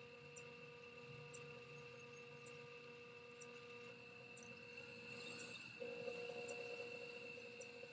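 Electric pottery wheel running, a faint steady motor whine with a higher tone above it. About five seconds in there is a short hiss, and the whine falters and comes back slightly louder.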